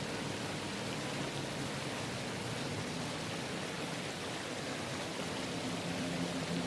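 Steady rushing of a waterfall, with a faint low hum coming up underneath near the end.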